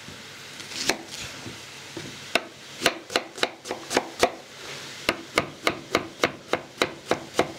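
Kitchen knife chopping an onion on a bamboo cutting board: a few single cuts, then quick runs of sharp knife strikes on the board at about four a second.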